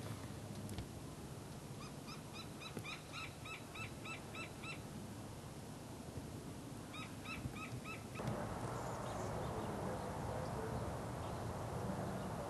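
A bird calling in two quick runs of short, clear, repeated notes, about four or five a second, over a faint outdoor hiss. A louder steady hiss sets in about two-thirds of the way through.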